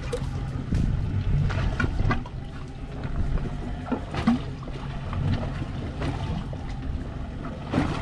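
Water slapping and splashing against the side of a small fishing boat, with wind noise on the microphone and a low steady rumble underneath. Several short sharp splashes or knocks come through it, the strongest a little after four seconds in and again near the end.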